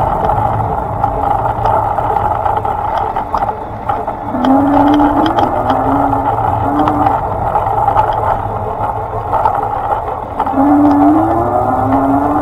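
Steady running noise of a small vehicle on the move: a constant hum and rushing noise, with two short runs of rising tones around the middle and near the end.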